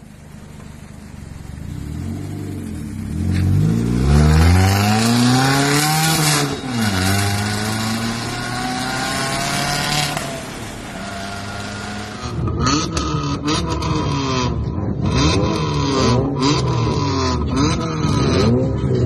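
Modified Suzuki Swift with an aftermarket valvetronic exhaust, loud: the engine pulls hard with its note climbing, then drops back and holds a steady drone. After a cut about twelve seconds in, the engine is blipped in a series of quick revs, each rising and falling.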